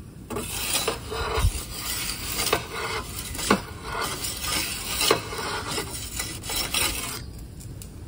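Perforated metal turning peel scraping and rasping across the pizza stone of an Ooni Koda 12 gas oven as the pizza is slid onto it and turned, with several sharp metal taps along the way. The scraping stops about seven seconds in.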